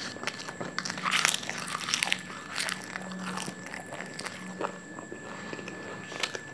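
A man biting and chewing raw guava leaves close to a lapel microphone: irregular crisp crunches, loudest about a second in.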